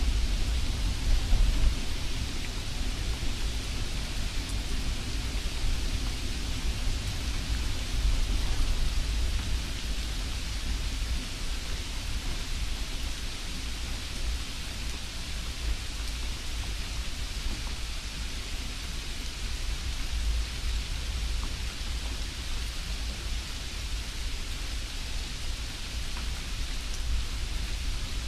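Steady hiss with a low rumble underneath, even throughout, with no separate knocks, clicks or tones.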